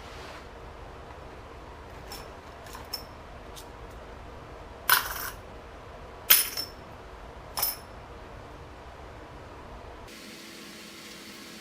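Small metal objects clinking: a few light ticks, then three sharp clinks with a short high ring, roughly a second and a half apart. A low steady hum runs underneath and changes near the end.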